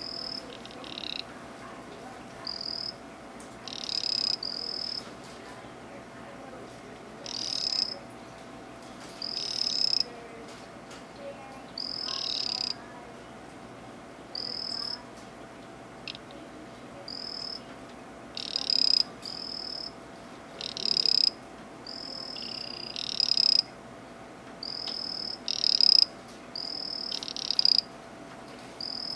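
Poison dart frog calling again and again: short, high-pitched trilled calls, one every second or two, some longer than others, over a faint steady hum.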